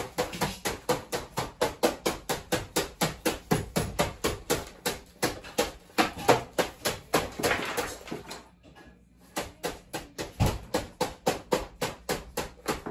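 A hammer striking repeatedly and fast, about four blows a second, with a pause of about a second and a half two-thirds of the way through.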